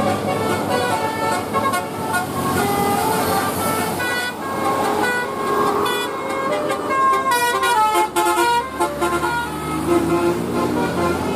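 A bus's basuri telolet horn playing a melodic tune: a rapid string of short notes that step up and down, often several at once, with quick runs of notes about two-thirds of the way through.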